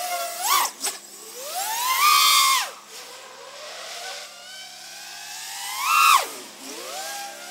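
4-inch quadcopter's Emax RS2205 2600kv brushless motors spinning DAL T4045 bullnose tri-blade props, whining as the throttle is punched. A short blip comes about half a second in. Then twice, about two and six seconds in, the pitch rises steeply, holds briefly and drops away.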